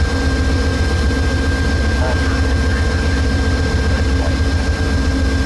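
Diesel locomotive engines running with a steady low rumble and a thin steady high tone above it.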